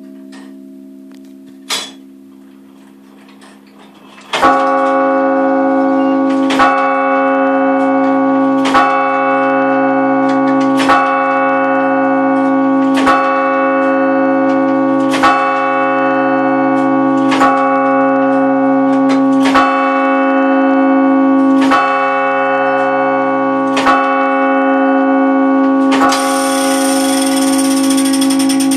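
The tenor bell is struck eleven times by the 1895 Gillett & Johnston turret clock, striking the hour of eleven. The strokes come about two seconds apart, and each rings on into the next. Before the first stroke the last note of the chime dies away and the mechanism gives a single click. Near the end a high hiss comes in.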